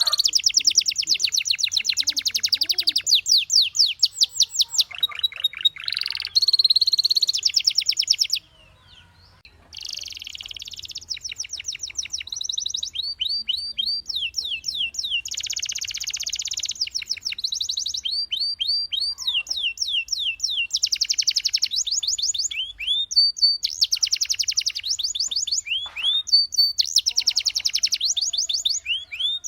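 Domestic canary singing: fast trilled phrases of rapidly repeated high notes, some held as quick rattles and others as runs of notes sweeping down in pitch, with a brief pause about eight and a half seconds in.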